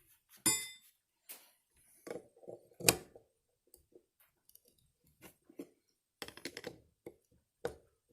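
Small metal carburetor parts and tools clinking and knocking on a workbench while the plug is fitted into the bottom of a John Deere 60 carburetor: a ringing metal clink about half a second in, a sharper knock about three seconds in, then scattered small clicks and rattles.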